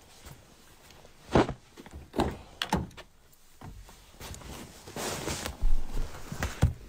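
Sharp clicks and thumps of a car door and a handheld phone being moved about as someone gets into a car. The loudest thump comes about a second and a half in, and a short rush of noise follows about five seconds in.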